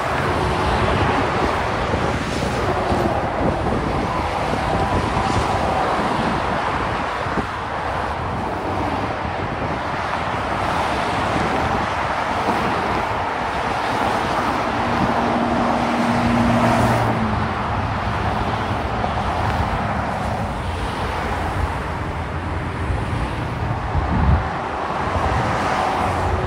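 Steady rush of heavy expressway traffic, tyres on pavement and engines of cars and trucks passing below. Past the middle a heavy truck's engine hum stands out for a few seconds, and near the end there is a brief low thump.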